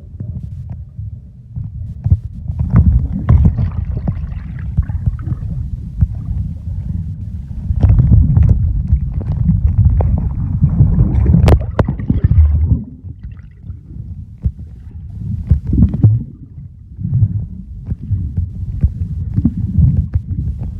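Muffled, low rumbling and sloshing of water picked up by a phone's microphone underwater while swimming, with scattered clicks and knocks. It swells louder in surges, most strongly for several seconds in the middle, then eases off.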